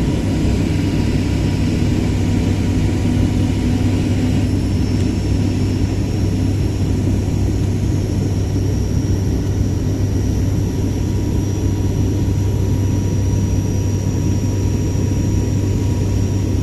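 Steady drone of an airplane's engines and airflow heard inside the passenger cabin: a deep, even rumble with a thin high whine that comes in about four seconds in.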